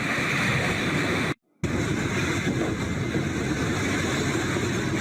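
Steady mechanical noise, like running engines or traffic, that cuts out completely for a moment about a second and a half in.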